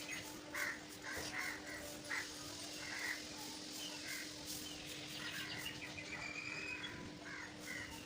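Crows cawing, short calls repeated every second or so, over a faint steady hum.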